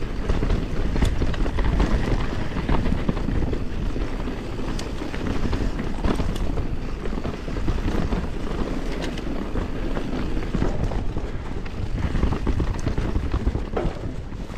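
YT Capra Core 3 MX mountain bike riding down a rough dirt trail: a steady rumble of tyres and wind on the microphone, with scattered sharp clicks and knocks from the bike over the bumps.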